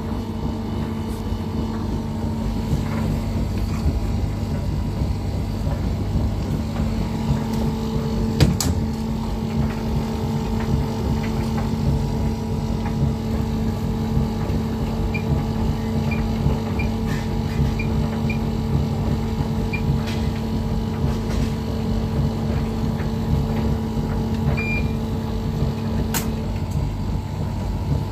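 Front-loading Bosch WAT28490NL washing machine being set up over a steady hum: its door shuts with a sharp click about eight seconds in, then its control panel gives a run of short high beeps as the Drain/Spin program is selected, followed by a longer beep and another click near the end.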